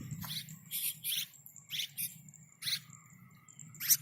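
Keket babi bird giving a series of short, harsh chirps, one every half second to second, the loudest near the end.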